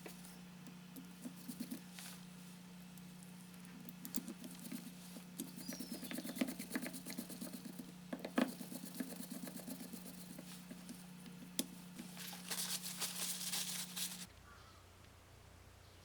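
Irregular small clicks, taps and rustles, thickening into a rapid clatter about twelve seconds in, over a steady hum that cuts off suddenly near the end.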